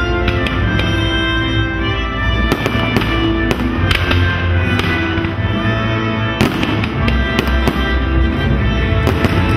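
Aerial fireworks shells bursting in a series of sharp bangs over music with long held notes.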